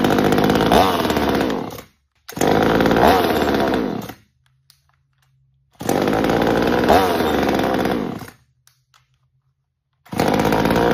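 Small two-stroke Veor chainsaw revved in four bursts of about two seconds each, its pitch rising and falling within each burst and dropping away at the end, with near silence between.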